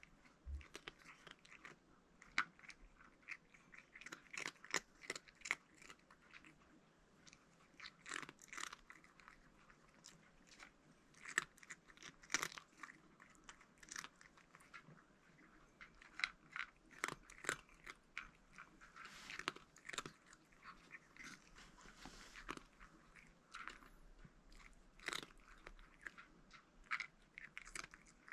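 A calico cat crunching hard food from a plastic bowl: a crisp, irregular crackle of bites in quick clusters, with short pauses between mouthfuls.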